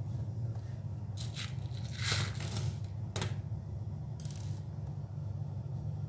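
Handling noise: a few short scrapes and rustles as hands move the laptop, over a steady low hum.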